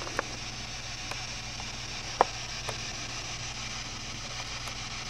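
Quiet room tone: a steady hiss and a low hum, broken by a few faint clicks, the sharpest about two seconds in.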